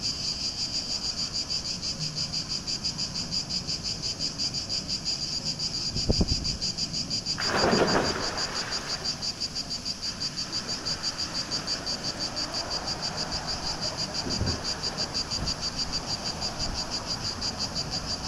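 Steady chorus of insects in a fast, even pulse throughout. About six seconds in there is a thump, then a broad splash as a person jumps into the swimming pool, settling over a second or two.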